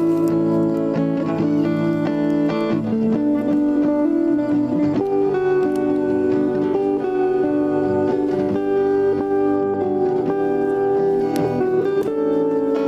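Instrumental background music, a plucked guitar carrying a steady melody.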